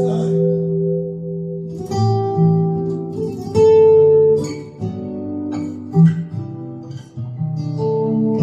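Acoustic guitar playing an instrumental passage of plucked notes over ringing bass notes, recorded music played back over hi-fi loudspeakers and picked up by a phone.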